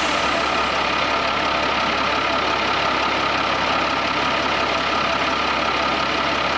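Ex-army Unimog truck's diesel engine running steadily, a constant drone without changes in pitch.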